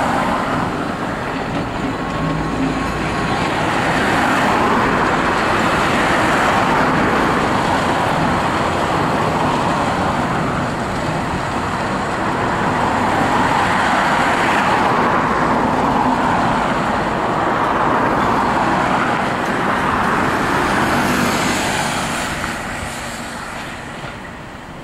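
Road traffic passing close by, cars going past one after another in several swells of tyre and engine noise, fading away near the end.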